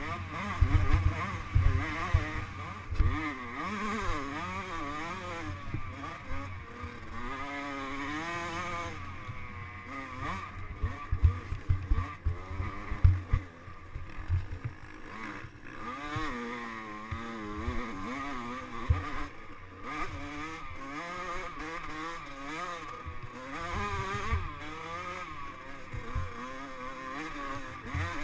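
Off-road dirt bike engine heard from an onboard camera, revving up and down continually as the rider works the throttle over rough ground and up a rocky hill climb. Heavy low thumps from bumps and impacts come in clusters near the start and again about halfway through.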